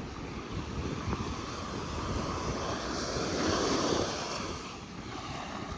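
Ocean surf washing onto the shore with wind rumbling on the microphone; a wave swells up and dies away about three to four seconds in.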